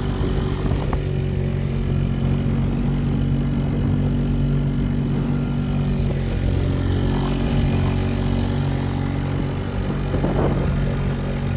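Small outboard motor on a skiff running steadily.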